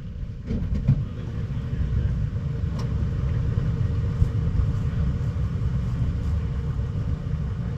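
Steady low rumble of wind buffeting the microphone inside a gutted minivan with its window glass missing, as the loose headliner fabric moves. A few light knocks come in the first seconds.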